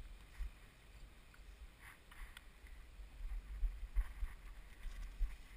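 Low, uneven rumbling of wind and movement on a small camera's microphone, louder in the second half, with a few faint light clicks.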